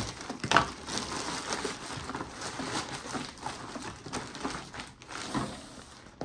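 Packaging crinkling and rustling in irregular bursts as a large package is torn open and rummaged through by hand.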